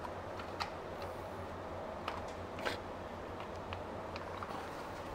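Scattered light clicks and scrapes of a scooter's oil-filter cap being pushed in against its spring and worked onto the threads of the filter housing by gloved hands, over a steady low hum. The sharpest click comes a little past halfway.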